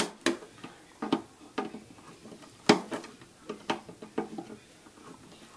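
Thin sheet-metal lid of a steel ammo spam can clicking and ticking in irregular sharp strokes, several seconds apart at most, as it is worked by hand to break it loose and peel it open.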